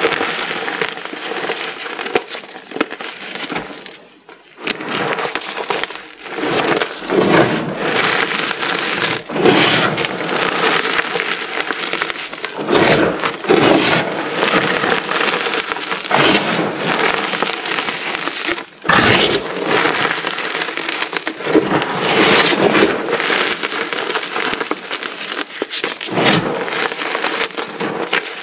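Many small moulded pieces of reformed, dyed gym chalk being crushed together: a dense, continuous crunching full of sharp cracks and crumbling, easing off briefly twice.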